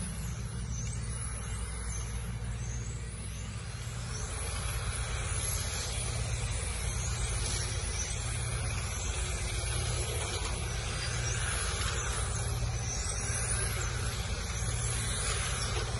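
Radio-controlled cars running laps on a track, their electric motors whining high and sweeping up and down in pitch again and again as the cars speed up and slow for corners, over a steady low hum.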